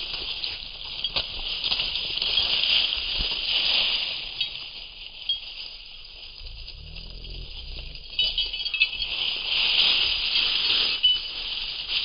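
A mink and a muskrat scuffling in snow-covered dry grass and leaves: rustling and crackling with sharp clicks, and short high squeaks from about eight seconds in.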